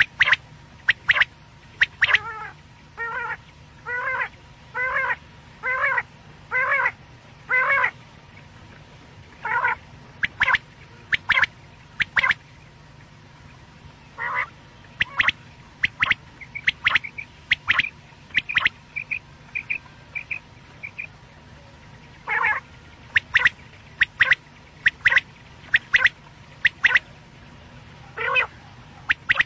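Quail calls repeated over and over, as used to lure quail for hunting: first a steady series of pitched calls about one a second, then quick groups of short sharp notes, with a run of faint high notes partway through.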